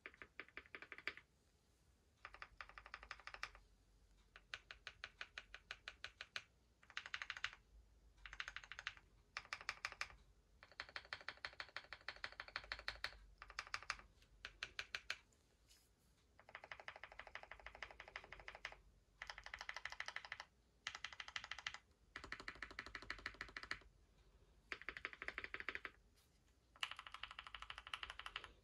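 Custom 60% mechanical keyboard being typed on: a Bakeneko60 case with an FR4 plate, Zaku switches lubed with Krytox 205g0 and fitted with Deskeys films, and GMK Godspeed Columbia keycaps. It comes in fast runs of keystrokes lasting a second or two each, with short pauses between them and the spacebar struck now and then.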